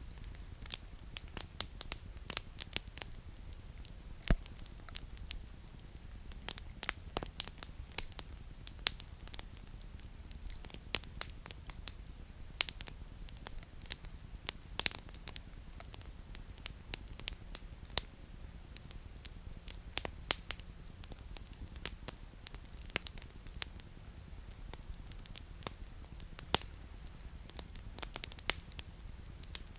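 Campfire burning, its firewood crackling with dense irregular pops and a few sharper, louder snaps, the loudest about four seconds in. A low steady background noise runs underneath.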